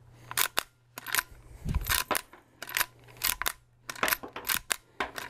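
Rossi R92 lever-action rifle being cycled by hand: a quick series of sharp metallic clacks, one cluster every second or less, as the lever is worked open and shut to feed and eject .38 Special rounds. The rifle is feeding properly with its shortened magazine spring.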